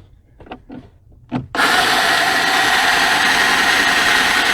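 Power drill fitted with a self-centering hinge bit, drilling a pilot hole: a few light handling clicks, then the drill starts about a second and a half in and runs steadily.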